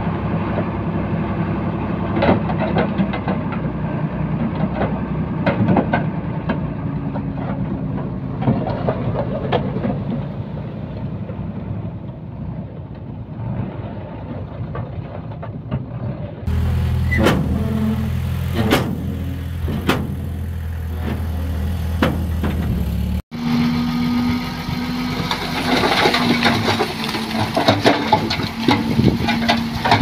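Heavy diesel earthmoving machinery (a Komatsu bulldozer and a 5-ton dump truck) running under work, with frequent sharp knocks and clanks. The sound changes abruptly about 16 seconds in and again about 23 seconds in.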